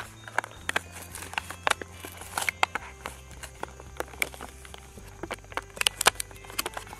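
Clear plastic packaging and its printed card backing crinkling and rustling as a teething ring is pulled open and out, making many irregular sharp crackles.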